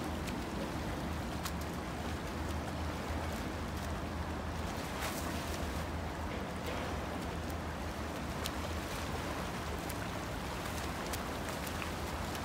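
Water splashing from swimmers' freestyle strokes over a steady low hum, with a few short, sharp slaps of water.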